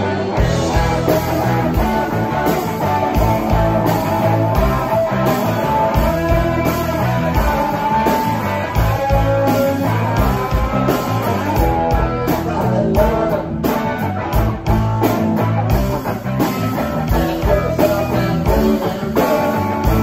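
Live rock band playing: electric guitars over bass and a steady drum beat.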